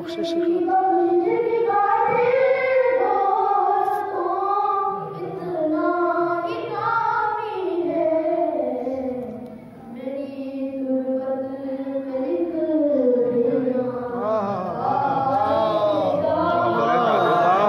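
A boy singing a manqabat, a devotional praise poem, solo without instruments, in long held notes that step up and down the melody; in the last few seconds the line becomes more wavering and ornamented.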